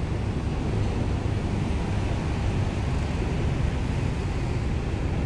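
Steady low rumbling outdoor background noise with no distinct tone or separate events.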